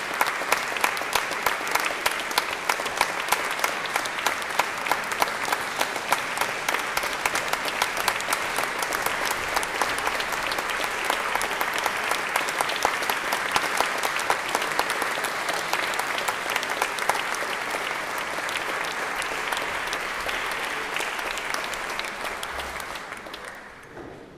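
Concert audience applauding, with one clapper close by standing out in steady, evenly spaced claps; the applause dies away near the end.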